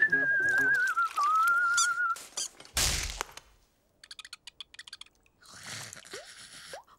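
Cartoon soundtrack: a wavering whistled tune for about two seconds, then a short loud burst of noise about three seconds in, followed by faint quick rattling as a large shaker is shaken over bathwater.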